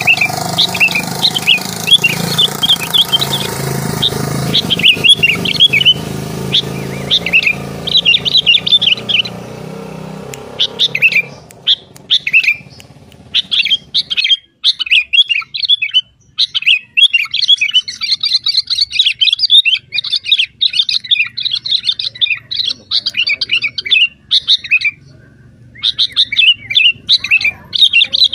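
Birds chirping in quick, dense runs of high chirps. A low steady hum sits underneath for the first dozen seconds, then fades out.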